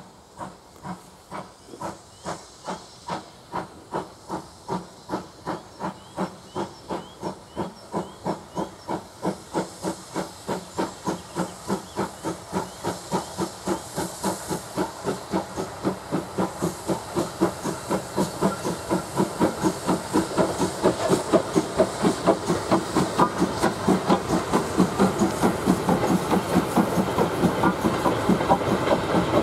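Steam locomotive hauling a goods train, its exhaust chuffing in a regular beat with steam hiss. The beats grow louder and quicken slightly as it draws near and passes.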